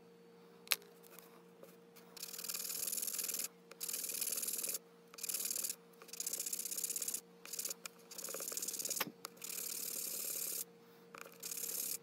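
Hand sanding a carved poplar lure body, rubbed back and forth on a sheet of sandpaper. The scratchy strokes start about two seconds in and come in a run of about a second each, with short pauses between. There is a sharp click about a second in and a faint steady hum underneath.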